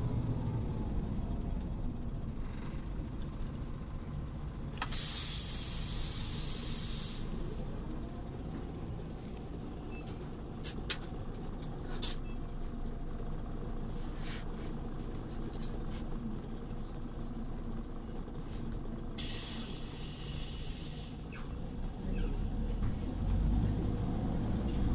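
Scania OmniLink city bus running, its engine a steady low rumble, with two bursts of compressed air hissing from its air system, each about two seconds long: one about five seconds in and one about nineteen seconds in. The engine grows louder near the end.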